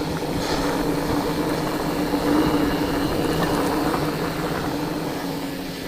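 Fat bike rolling down a drop on a rooty dirt trail: rolling tyre and drivetrain noise with a steady mid-pitched hum.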